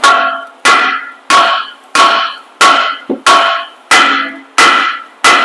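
Steady hammering on a rusted-on rear brake rotor of a Ram 2500 heavy-duty pickup, which the rust has seized to the hub: about nine hard blows, one every two-thirds of a second, each ringing like struck metal.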